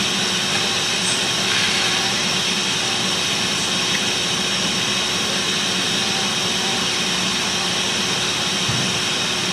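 Steady whooshing air noise of a fan running at an electronics soldering bench, even in level throughout.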